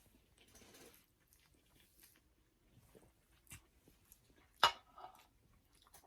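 People eating spicy instant ramen: faint chewing with light clicks of utensils against a bowl, and one sharper clink about four and a half seconds in.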